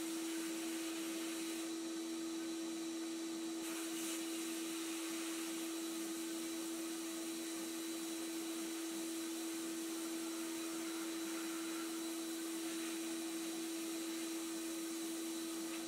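Abrasive blast cabinet blasting rust and old paint off a pressed-steel toy truck bed: a steady hiss of air and grit from the nozzle, with a steady hum underneath.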